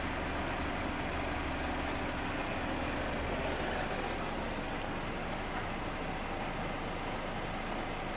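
2007 Chevy HHR's 2.2-litre Ecotec four-cylinder engine idling steadily.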